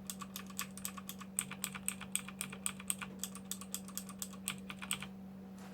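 Clicky blue mechanical keyboard switches typed in a quick run, several sharp clicks a second, with the keycaps' O-rings removed. The typing stops about five seconds in. A steady low hum runs underneath.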